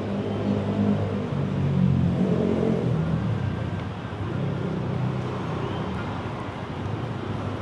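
City street traffic, with a motor vehicle's engine running close by. It is loudest about two seconds in and eases off after about four seconds.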